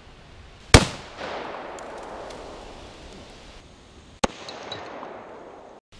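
Rifle shot from a modified SKS firing 7.62x39, a very loud crack with a long echo rolling off through the woods. About three and a half seconds later comes a second, quieter, sharper crack.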